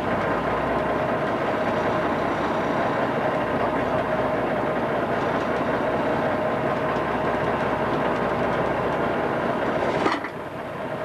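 Fishing boat's engine running steadily, heard inside the cabin as a constant drone with a steady hum. About ten seconds in there is a sharp click and the drone drops a little in level.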